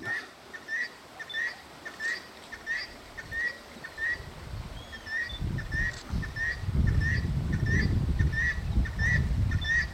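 A bird calling one short note over and over, about one and a half times a second, with a louder low rumbling noise from about halfway through to near the end.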